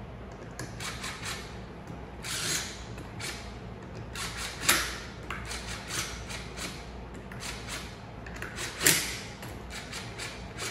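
Cordless impact driver run in a string of short bursts as it drives the air-chamber bolts down on a plastic diaphragm pump. Two of the bursts, about halfway and near the end, are louder than the rest.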